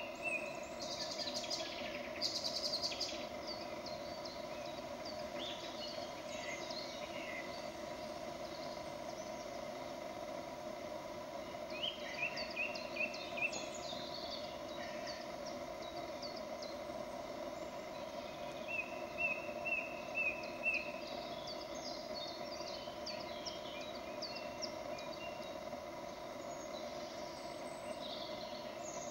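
Woodland birds calling, with scattered quick falling whistles and two runs of rapid repeated chirps, the loudest about twelve and nineteen seconds in, over a steady hum.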